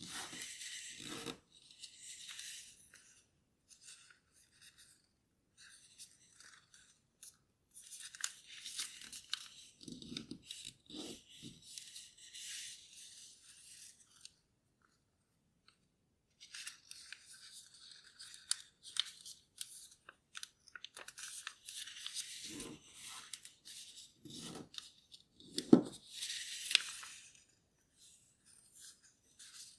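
A sheet of origami paper being folded and creased by hand: crisp rustling and crinkling in spells, with a few dull taps as the folds are pressed down, the sharpest near the end. It stops for about two seconds around the middle.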